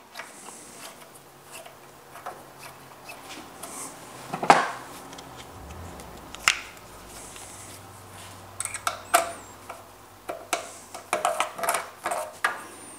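Small metal clicks and clinks of a steel bolt being set into an aluminium block and turned down with a folding hex key, with a louder knock about four and a half seconds in and a run of quick clicks over the last few seconds.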